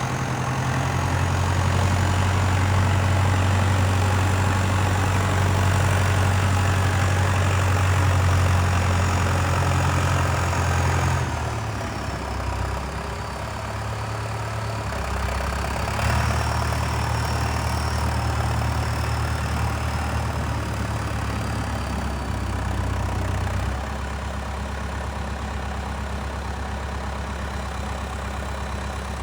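Valtra 815 tractor's diesel engine running, held at higher revs for the first ten seconds or so, dropping back, picking up again for a few seconds, then settling lower near idle. A faint high whine rises and falls with the engine speed.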